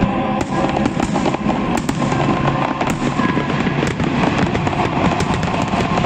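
Fireworks salute going off: a dense, continuous crackling of many small bursts, with no pause.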